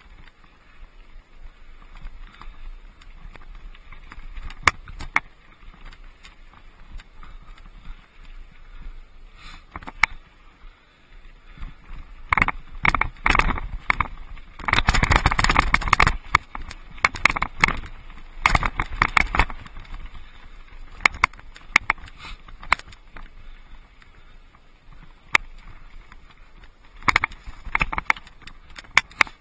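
Mountain bike rattling and jolting over a rocky trail, tyres crunching on loose gravel, with a dense run of hard knocks and clatter in the middle where the ground gets rougher.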